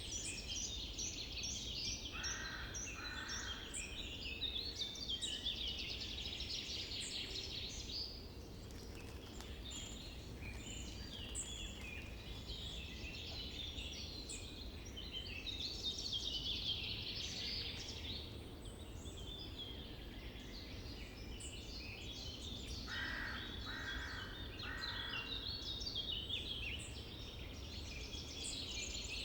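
Many songbirds singing at once in a summer forest: overlapping chirps, whistled phrases and fast trills, with a short three-note call twice. A steady low rumble runs underneath.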